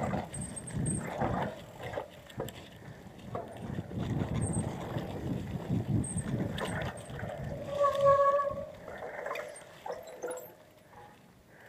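Mountain bike riding down a dirt singletrack covered in dry leaves: tyre and trail noise with rattles and knocks from the bike. About eight seconds in there is a short, steady, high squeal from a brake as the rider slows, and the riding noise dies down near the end.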